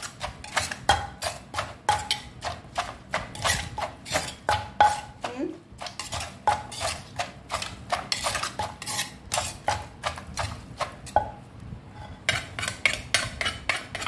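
Wooden pestle knocking in a clay mortar while a metal spoon turns green papaya salad: the light pounding and mixing of som tam, steady knocks about two to three a second, with a short break about ten seconds in.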